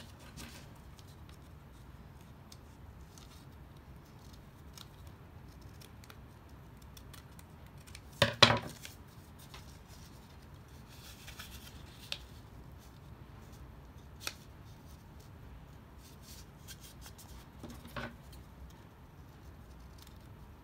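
Paper being folded and handled, with a few isolated sharp clicks and snips from a pair of scissors. The loudest is a single sudden knock about eight seconds in, and the scissors snip through the paper near the end.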